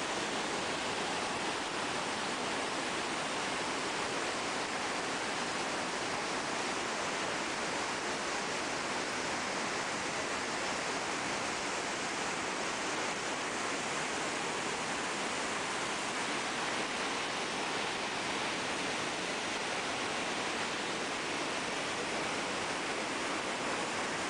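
The massive cascades of the Iguaçu Falls rushing as one steady, unbroken hiss of falling and churning water, with little bass.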